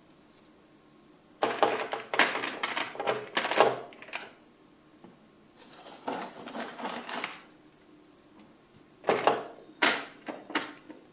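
Small decorative fireplace logs being set down and shifted on a bed of loose decorative crystals in an electric fireplace's firebox: clicking and rattling of the crystals in three bursts, about a second in, around six seconds, and near the end.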